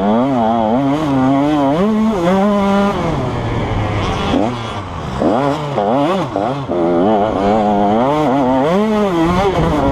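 KTM 150 SX two-stroke single-cylinder motocross engine under riding load, its pitch repeatedly climbing and dropping as the throttle is opened and rolled off. It settles lower for a couple of seconds in the middle before revving up again.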